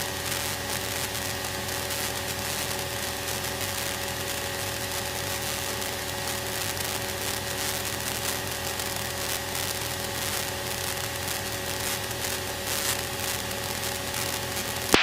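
Single-engine Cessna's piston engine and propeller droning steadily at climb power, heard inside the cabin: an even hiss with a few steady tones held throughout.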